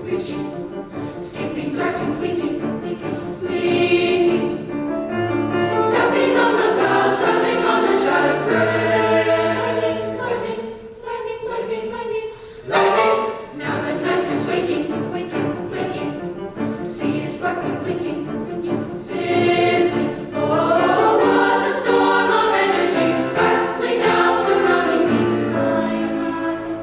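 A choir singing in parts with piano accompaniment, with a short drop in the sound about eleven seconds in before the voices come back in full.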